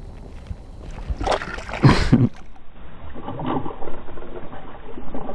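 Small hooked bass thrashing at the water's surface: two sharp splashes about one and two seconds in, then softer sloshing.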